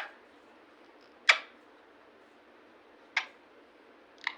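Indian ringneck parakeet giving three short, sharp chirps, each a quick downward sweep in pitch; the loudest comes about a second in.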